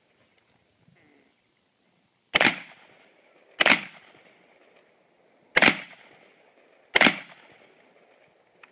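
Four pistol shots fired during a practical shooting stage, spaced unevenly about one to two seconds apart, each followed by a short echoing tail.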